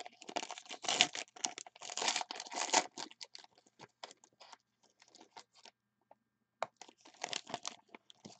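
Foil wrapper of a 2019 Panini Spectra football card pack being torn open and crinkled by hand, in quick dense rustles that are loudest in the first three seconds, thin out, pause briefly, then pick up again near the end.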